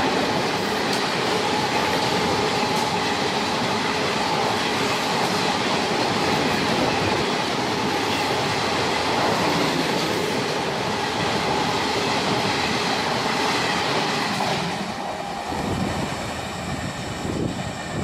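LHB passenger coaches of an express train passing at full speed, a steady loud rush of wheels on rail with occasional clicks. The noise thins and drops a little near the end as the last coaches go by.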